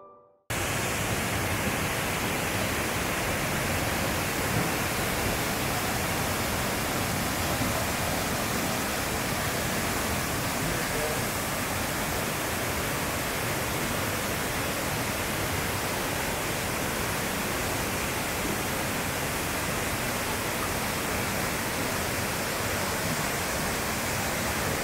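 Waterfall cascading over rock ledges: a steady, dense rush of falling water that starts abruptly about half a second in.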